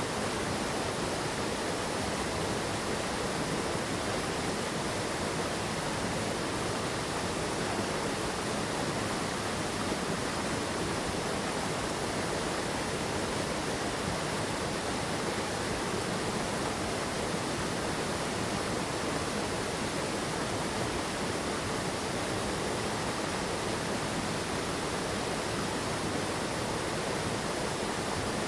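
Steady, unbroken rush of water from a mountain stream tumbling over rocks and falls.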